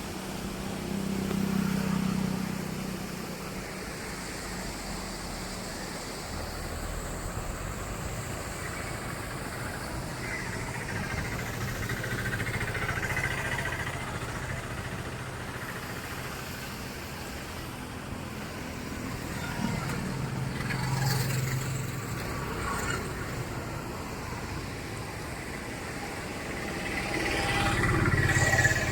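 Motor vehicle noise on a road: a steady engine and road rumble that swells louder three times, about two seconds in, around the twenty-second mark and near the end.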